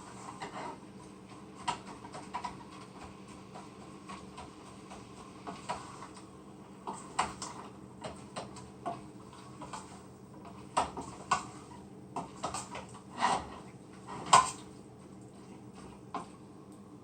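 A metal cooking utensil knocking and scraping against a pot at irregular moments while ground beef is stirred and broken up, over a steady low hum. The loudest knock comes near the end.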